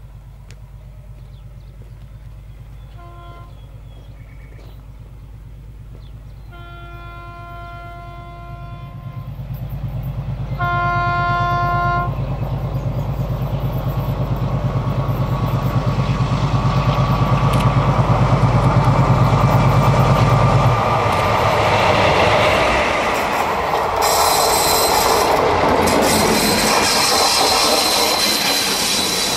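ALCO DL500C diesel-electric locomotive approaching with its engine running low, sounding its horn three times: a short toot about three seconds in, then two longer blasts. It then passes close, and the coaches go by with a loud rush and wheels clattering over the rail joints.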